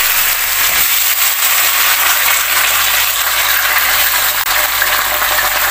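Cut potato sticks going into a frying pan of hot oil, the oil sizzling loudly and steadily as they fry.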